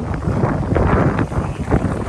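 Wind buffeting the microphone outdoors, a loud, uneven rumble that rises and falls in gusts.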